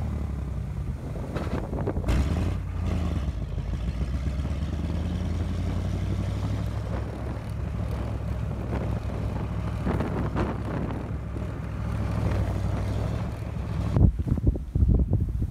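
Engine running with a steady low drone. Near the end come several louder irregular knocks.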